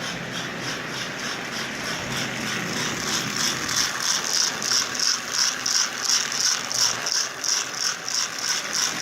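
Lionel Sound of Power mechanical tender running with its body off: ball bearings tumbling inside its hollow disc, making a rhythmic rattle of about three pulses a second that grows louder about three seconds in. The disc is turned by a red rubber band standing in for its broken belt, rubbing on the centre rail.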